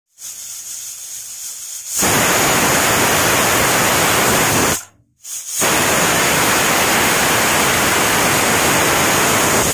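Pressure cooker's weighted whistle valve venting steam in a loud, steady hiss with a high shrill note in it, the sign that the cooker has reached pressure. It starts softer, turns loud about two seconds in, breaks off briefly near the middle, then resumes.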